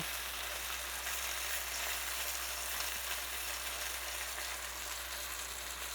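Flour-coated tilapia pieces frying in a pan of oil and butter over medium heat: a steady sizzle.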